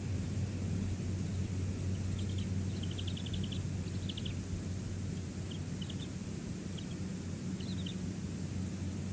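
Faint, rapid high-pitched chittering from a bald eagle in several short runs, from about two seconds in until near the end. It sits over a steady rushing noise and low hum from the outdoor nest-cam microphone.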